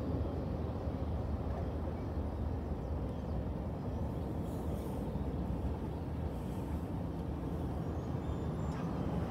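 Steady low rumble of a freight train moving away after clearing a grade crossing.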